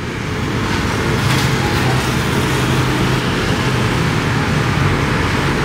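Steady road-vehicle noise: a running engine's low hum under a continuous rushing noise.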